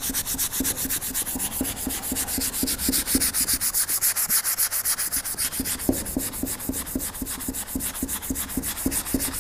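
Abrasive sponge scrubbed rapidly up and down a painted metal kettlebell handle in quick, even strokes: the paint is being rubbed off the handle down to bare metal.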